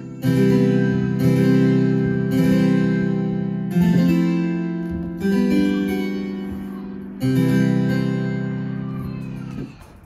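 Roland FP-90X digital piano playing its 'Harpsi 8'+4'' harpsichord tone: six chords struck one after another, each left to ring and fade before the next. The playing stops shortly before the end.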